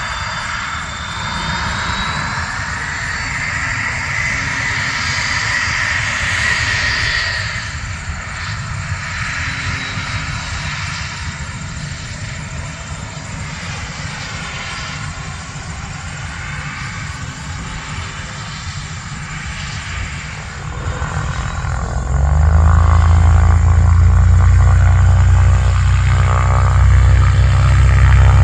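Cessna CitationJet CJ2 business jet's twin Williams FJ44 turbofans running, a high whine over jet noise. About two-thirds of the way through, a much louder low drone with a steady buzzing pitch comes in and holds.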